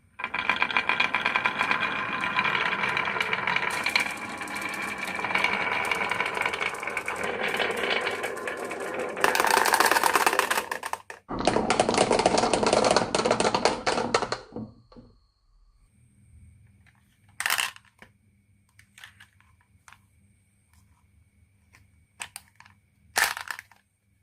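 Marbles rolling and clattering down a wooden marble run, a dense rapid rattle that runs for about eleven seconds. A second burst of rattling stops abruptly at about fifteen seconds, followed by a few sharp single clicks.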